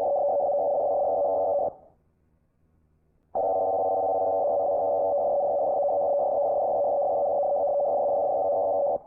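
Emergency alert system alarm: a steady electronic tone that sounds for about a second and a half, stops for about a second and a half, then comes back and holds steady for over five seconds.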